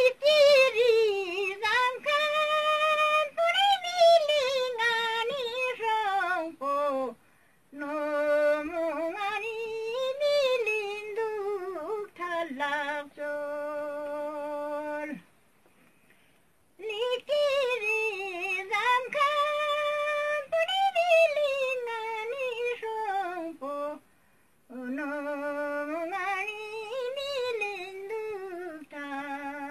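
An elderly woman singing a Ladakhi song solo and unaccompanied, in four long phrases with short breaks for breath, her pitch wavering and gliding in ornaments.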